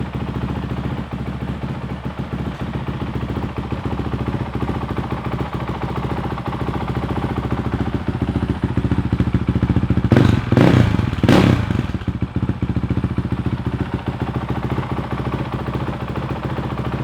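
Honda CRF450L single-cylinder four-stroke dirt bike engine idling steadily through a full Yoshimura RS4 exhaust, with two quick throttle blips about ten and eleven seconds in.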